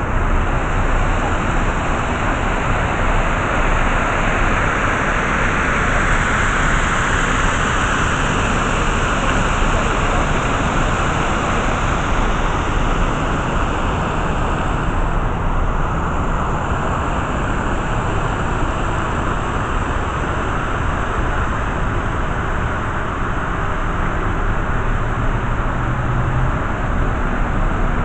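Steady rushing of water pouring down a man-made waterfall.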